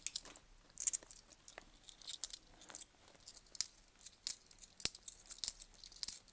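Loose 10p coins clinking against one another as they are slid and sorted by hand, in short, irregular metallic chinks.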